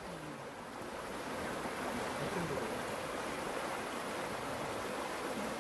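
Steady rushing noise of a mountain stream.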